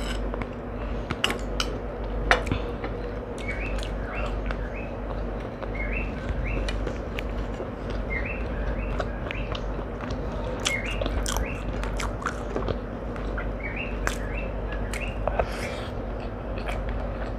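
A small bird chirps repeatedly, in quick pairs and triplets of short notes every second or two. Scattered sharp clicks of eating by hand come in between, over a steady low hum.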